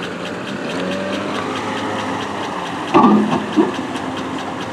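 Pickup truck engine idling steadily, with a fast regular ticking over it. About three seconds in there is a short loud burst, and a smaller one just after it.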